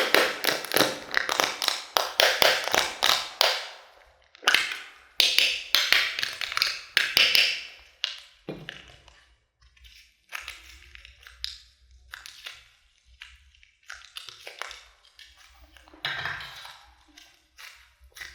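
Close-up handling sounds: dense runs of small crackly clicks and taps for the first half, then sparser clicks.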